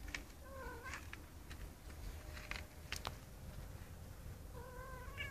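A cat meowing twice: a short call about half a second in, then a longer, wavering call near the end, with a few sharp clicks in between.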